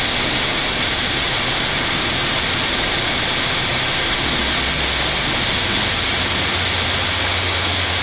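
Steady roar of a Boeing 747-8's jet engines and rushing airflow while climbing out just after takeoff, heard as an even hiss. A low hum comes in about halfway and grows stronger near the end.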